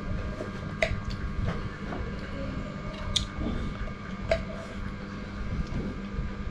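A person eating salted crab with rice: chewing over a steady low hum, with scattered sharp clicks of crab shell and utensils.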